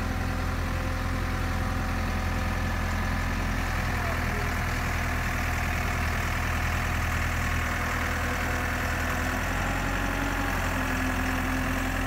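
Diesel engine of a Dieci telehandler running steadily at low revs while its boom holds a wooden frame.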